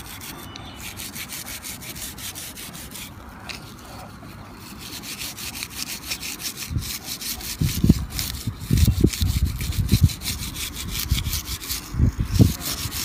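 Repeated back-and-forth rubbing strokes as the dirt is cleaned off a windshield wiper's rubber blade. The strokes get louder in the second half, with some low knocks among them.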